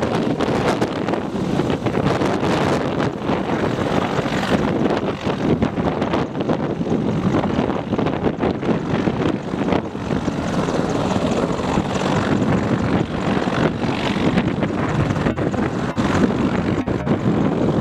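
AH-64E Apache attack helicopters running on the ground, with their main rotors turning and their twin turboshaft engines running: a loud, steady rotor and turbine noise.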